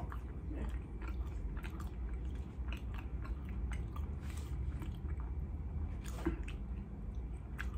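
Close-up chewing of a mouthful of bagel with cream cheese and lox: soft, moist mouth sounds with scattered small clicks, over a steady low hum.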